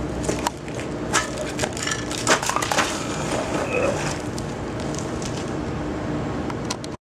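Crunching, scuffing and a few sharp knocks as a person moves and sits down on gravel, over a steady outdoor background noise with a faint hum. The sound cuts off suddenly near the end.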